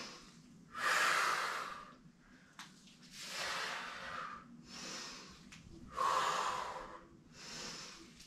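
A woman breathing hard from exertion during a high-intensity interval exercise set: about six heavy, audible breaths, each lasting about a second, with short pauses between them.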